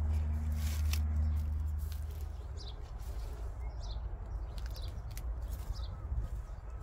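A bird calling in short, high, falling chirps, several times from about two and a half seconds in. Under it is a low rumble that fades out about two seconds in, and there are scattered small clicks.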